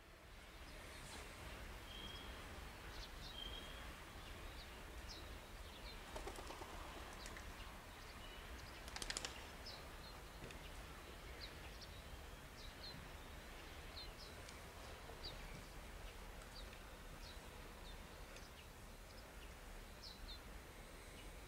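Small birds chirping in short high calls every second or so over a faint low steady rumble, with a brief rattle of clicks about nine seconds in.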